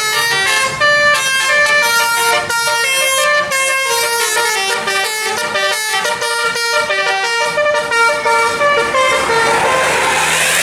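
Bus 'telolet' horns, multi-trumpet air horns, playing a loud, fast tune of short stepped notes. About a second before the end the tune gives way to a loud rushing noise.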